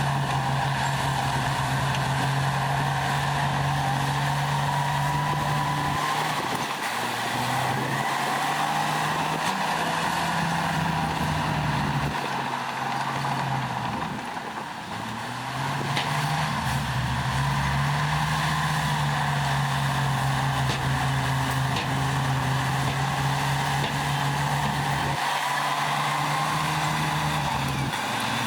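Heavy diesel engine of earthmoving machinery working under load, its note dropping and climbing back up several times, with a fainter high whine rising and falling over it.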